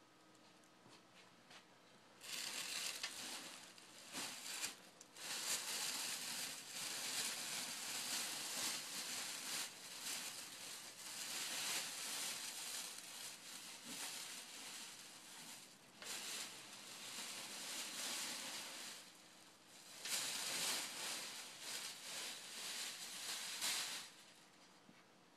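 Clear plastic wrapping crinkling and rustling as it is pulled off a boxed car wheel. It starts a couple of seconds in and comes in several long stretches, stopping shortly before the end.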